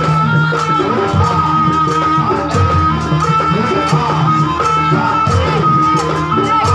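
Loud Javanese folk dance music: a high, held melody line that steps between notes over steady, evenly spaced percussion and a low pitched drone-like line.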